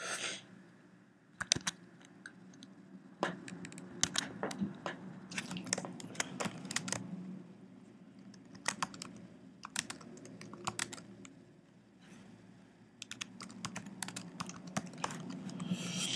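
Typing on a computer keyboard: uneven clusters of quick key clicks with short pauses between them.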